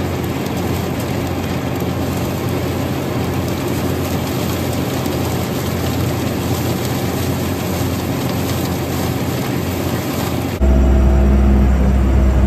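Allis Chalmers farm tractor running steadily while pulling a flail chopper through standing corn, a dense even drone of engine and machinery. About ten and a half seconds in the sound changes abruptly to a louder, deeper steady hum.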